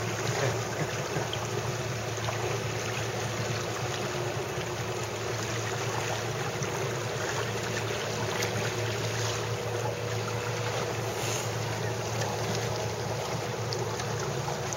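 Wind on the microphone and water rushing past a moving boat, with a boat engine's low hum running steadily underneath.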